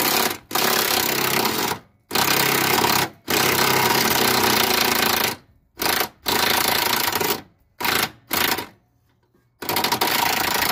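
Impact wrench hammering in repeated bursts, from a fifth of a second to about two seconds long, as it loosens the rear track bar bolts. It pauses for about a second near the end, then runs again.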